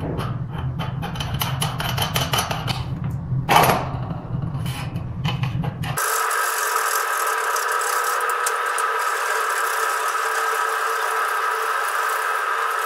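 Small metal parts clicking and rattling as a bearing and washers are fitted by hand onto a scooter's front rocker-arm axle. About six seconds in, this is cut off suddenly and replaced by a steady drone of several held tones with no bass.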